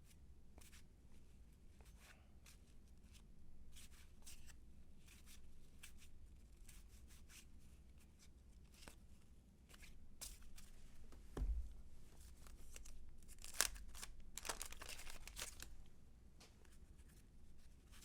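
Baseball cards being handled and flipped through, with faint clicks and slides of card stock, and a thump about two-thirds of the way in. Just after the thump comes a louder stretch of paper tearing and rustling, as when a card pack wrapper is torn open.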